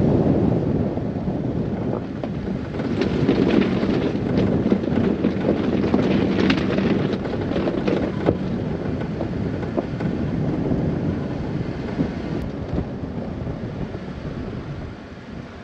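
Wind buffeting the microphone, a loud, uneven low rumble, with scattered clicks and rustles in the first half. It fades near the end.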